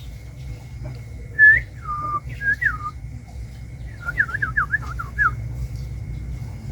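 A bird whistling: a few clear slurred notes, the first one the loudest, then a quick run of about seven short down-slurred whistles.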